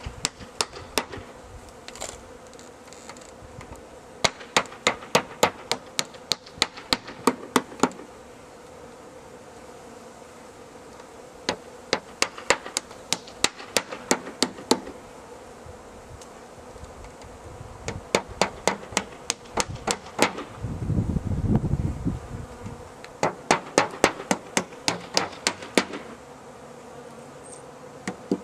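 Honeybees buzzing steadily at an opened tree hive, with several runs of sharp knocks at about three a second, like hammer or chisel strikes.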